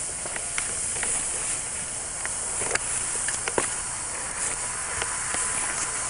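Steady hiss with scattered crackles and snaps of dry grass and twigs as people walk through brush.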